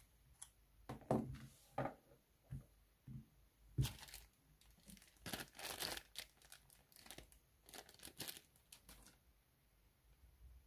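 A clear plastic bag holding a metal low-profile bracket crinkling and rustling as it is handled, after a few light knocks and clicks in the first seconds as the PCIe card and its antennas are handled.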